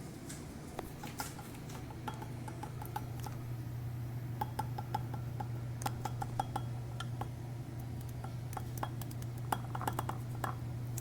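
A metal utensil clinking and tapping against a glass bowl in light, irregular clicks, over a steady low hum.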